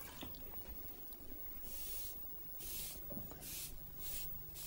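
Broad watercolour brush loaded with clean water swishing across watercolour paper in five quick sweeps, starting about two seconds in: the paper being wetted for the wet-in-wet technique.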